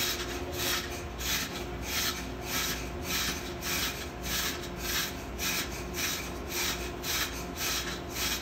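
A cloth rag rubbing back and forth over a marine diesel crosshead bearing shell, about two to three strokes a second, wiping away loose white-metal chips shed by the failed bearing lining.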